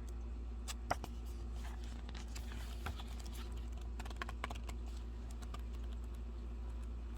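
Scattered light clicks and a short stretch of rustling, with the denser rustling a couple of seconds in: the paper and plastic pieces of a K-pop album (photocards, booklet, packaging) being handled and put away. A steady low hum runs underneath.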